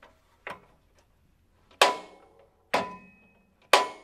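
A soft click, then three sharp metallic clicks about a second apart, each with a brief ring: a truck's newly fitted battery disconnect switch being switched to test it.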